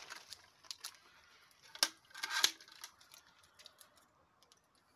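Light handling noises: a few scattered small clicks and rustles, the loudest about two seconds in.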